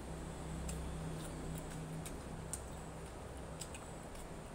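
Eating sounds: scattered faint smacking and clicking from chewing grilled chicken, irregular rather than rhythmic. A low steady hum runs underneath, strongest in the first two seconds.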